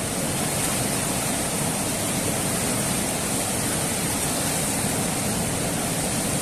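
River water rushing steadily, an even noise without change.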